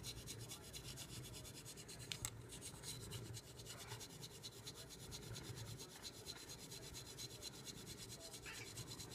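A wooden back scratcher rubbed quickly back and forth over a cat's fur: a soft scratching rasp in fast, even strokes.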